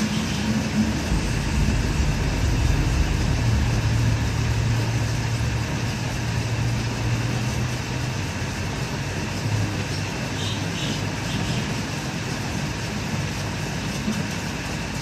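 LPG being filled into a gas cylinder through a hose and valve: a steady rushing noise with a low hum, strongest in the first half.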